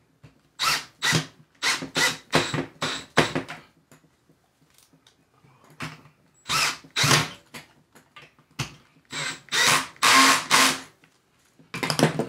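Power drill run in short trigger bursts: about seven quick pulses in a row, then a few longer runs later on.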